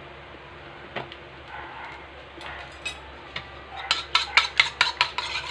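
A metal spoon beating egg in a ceramic bowl: about four seconds in it starts clinking against the bowl rapidly, about five strokes a second, after a few single light taps.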